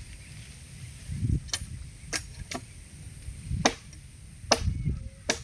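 A series of about six sharp knocks or cracks at irregular intervals, over a low rumble. No chainsaw motor is running.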